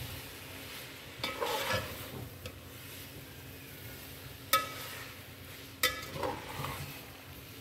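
Metal slotted spatula stirring and tossing spaghetti in a metal pot on the heat, with a light sizzle from the pan. Twice in the second half the spatula strikes the pot with a sharp metallic clink.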